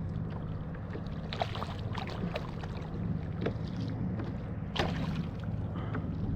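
A kayak on the water, with a steady low rumble and scattered short knocks and splashes against the hull.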